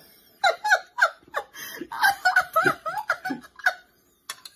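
A man and a woman laughing together in quick repeated bursts, breaking off briefly near the end.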